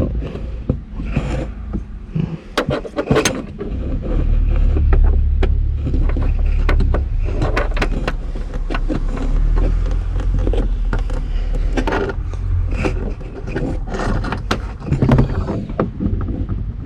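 Irregular clicks, knocks and scrapes of a tail light's plastic fixing pegs being started and turned by hand, over a steady low rumble that sets in about four seconds in.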